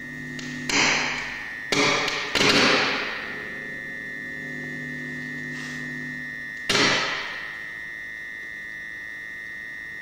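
Amplified sound of a compost-bucket sound sculpture: a steady high whine, broken by sharp crackling bursts that ring out and fade, three in quick succession early and one about seven seconds in. The crackles come from metal bits in the bucket touching.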